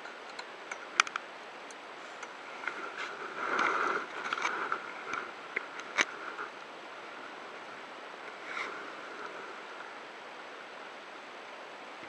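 Steady sea and wind noise aboard a small boat, with a hooked pollack splashing at the surface around four seconds in. Sharp knocks stand out, the loudest about a second in and at six seconds, as the fish is swung out of the water.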